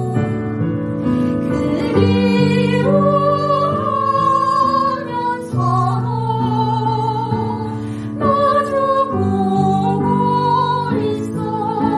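A classical soprano and a jeongga (Korean traditional lyric song) singer sing a duet over instrumental accompaniment of held chords. The voices sustain long notes with a wide vibrato.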